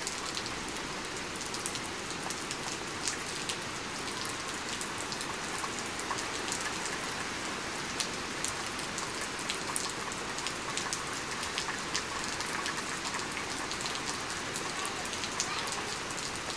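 Steady rain from the outer band of a hurricane, falling without letup, with many sharp ticks of individual drops striking close by.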